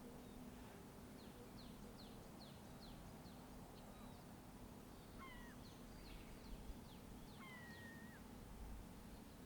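Wild birds calling faintly: several runs of short, quick, falling high notes, and two longer whistled calls in the second half. Underneath is a steady low hum of distant road traffic.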